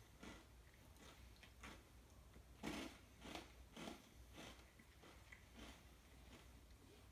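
A person chewing a mouthful of food, faint soft chews with mouth sounds at a steady rhythm of roughly one every half second to second.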